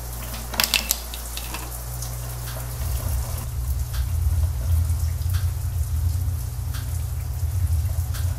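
A low droning rumble that grows louder and rougher about three seconds in, with scattered drip-like ticks over it.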